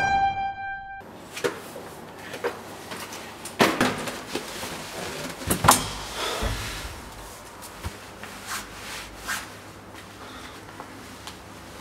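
A held keyboard note stops about a second in. Then come knocks, bumps and rustling as a man slumped on a lift floor moves against the car's walls, with a few sharp knocks and a dull low thud near the middle.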